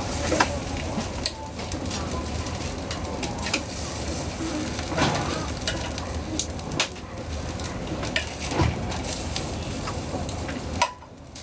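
Food frying with a steady sizzle, broken by occasional sharp clicks of a metal utensil; the sizzle falls away suddenly near the end.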